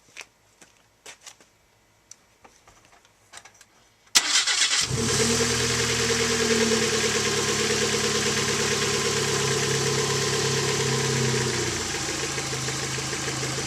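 A few faint clicks, then about four seconds in the 1992 Mazda 323's four-cylinder engine cranks briefly, catches and runs at a steady fast idle that settles a little lower near the end.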